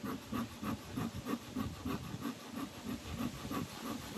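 Bee smoker's bellows pumped quickly, giving a rhythmic puffing hiss at about three to four puffs a second.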